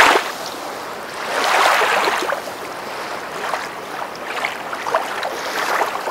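Sea waves washing onto a rocky shore, swelling loudly at the start, again about two seconds in and once more near the end, with smaller surges between.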